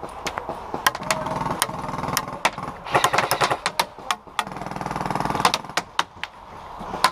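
Electric airsoft guns firing: about three bursts of rapid automatic fire with a buzzing, motor-like rattle, among many sharp single cracks.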